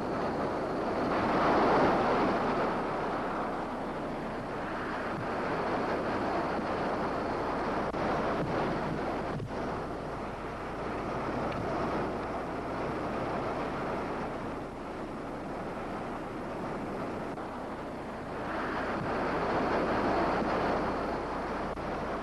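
Wildfire burning in strong, gusty wind: a steady rushing noise of wind and burning brush that swells about two seconds in and again near the end.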